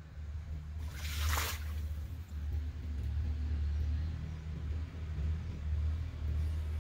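A brief splash of pond water about a second in, as a cast net is handled by a man wading in the pond, over a steady low rumble.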